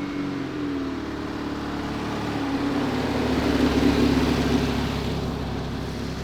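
A car's engine passing by: it grows louder to a peak about four seconds in, then fades away.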